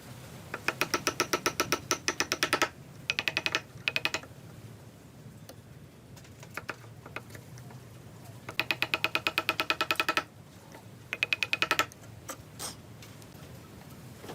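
A hand tool worked rapidly on wood in four runs of quick, even strokes, about seven a second, each stroke with a ringing tone; a low steady hum lies underneath.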